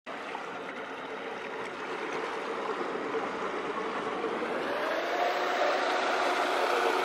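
A motorboat engine running steadily under a wash of rushing noise, heard from on board. Its hum steps up a little in pitch about five seconds in.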